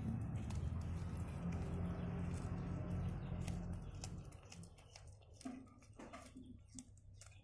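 Adult domestic cat growling low and steady over its lizard prey, fading out about four seconds in, followed by soft wet clicks of chewing.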